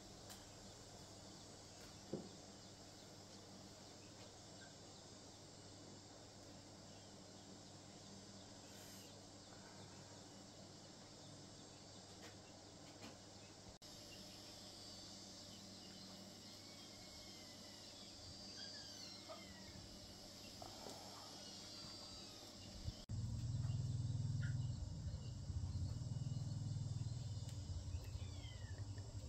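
Rural outdoor ambience: steady insect buzzing with a few short bird chirps around the middle. About two-thirds of the way in, a louder low rumble starts and continues.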